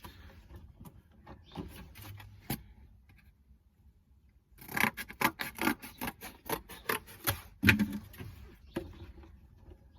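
Hands handling objects at close range: scattered clicks, then about halfway through a busy run of sharp clicks, rubbing and scraping that lasts some four seconds.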